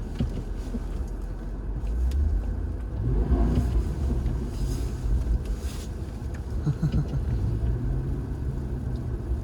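Car engine running with a steady low rumble, its pitch rising briefly a little over three seconds in.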